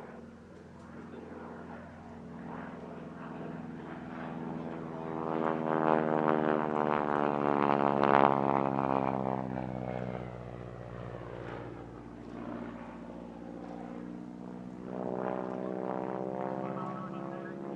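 North American AT-6C Harvard's nine-cylinder Pratt & Whitney R-1340 Wasp radial engine and propeller in a display flypast. The drone swells to its loudest about eight seconds in, then drops in pitch as the aircraft passes and moves away, and builds again near the end.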